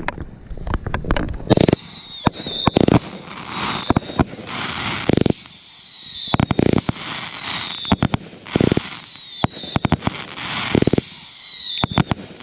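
Fireworks going off: a run of sharp bangs and crackling pops, with about five whistling shots whose pitch falls over about a second each.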